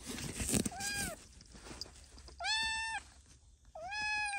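A kitten crying loudly inside a soft fabric-and-mesh pet carrier: three meows, a short one then two longer ones. Near the start there is rustling from the carrier as the kitten struggles. This is the distress crying of a kitten being taken to the vet.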